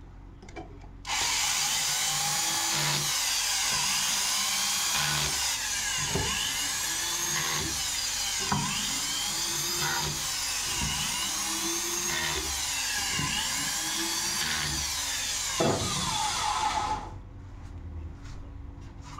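Cordless drill driving the bolts that clamp the halves of an aluminium centrifuge mold. It runs almost without a break for about sixteen seconds, starting about a second in, with a brief louder knock just before it stops.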